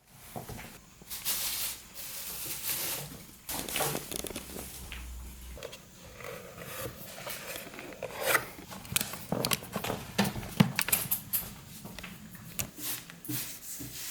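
Unpacking and handling noises: irregular rustling and rubbing with scattered sharp clicks and knocks, busiest in the second half.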